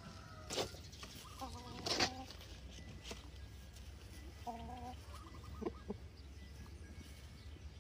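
Black mottled Brahma chickens clucking: a few short calls about a second and a half in and again around four and a half to five and a half seconds in, with several sharp clicks in between.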